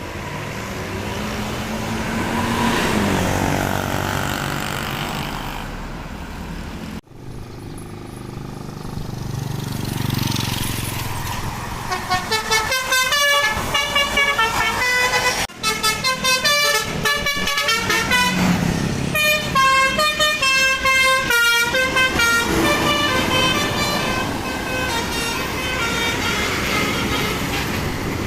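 Bus engine running, then a tour bus's 'telolet' Basuri multi-tone musical air horn playing a rapid melody of short, stepping notes through the second half.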